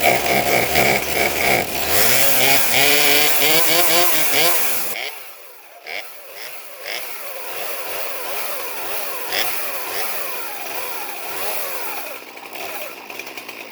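Old Poulan two-stroke chainsaw engine running after its sheared flywheel key was fixed: revving hard with rising and falling pitch for about five seconds, then dropping suddenly to a quieter, wavering idle. It runs but still needs a little tweaking.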